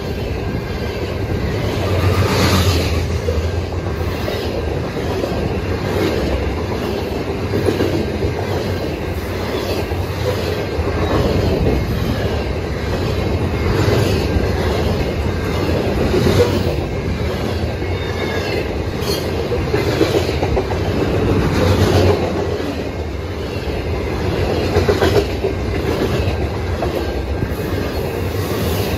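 Covered hopper cars of a long freight grain train rolling past at speed. A steady rumble of steel wheels on rail, with clickety-clack over the rail joints and sharper knocks now and then.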